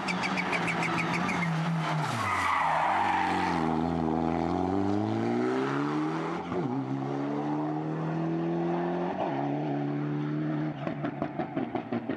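Mitsubishi Lancer Evolution X rally car's turbocharged four-cylinder engine at full stage pace. About two seconds in the revs drop as it brakes for a bend, then it accelerates hard, climbing through two upshifts. Near the end there is a run of rapid crackling as it lifts off for the next corner.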